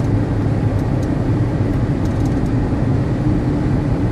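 Steady road noise inside a moving car's cabin at highway speed, with a low steady hum under it.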